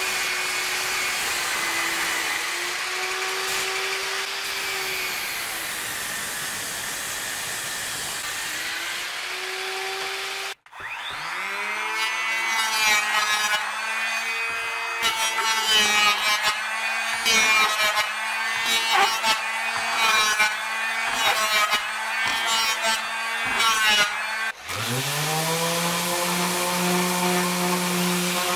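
A table saw runs steadily as it rips a black locust plank. Then an electric hand planer spins up and planes the beam in uneven passes. Near the end a random orbital sander starts up, its pitch rising, and runs steadily.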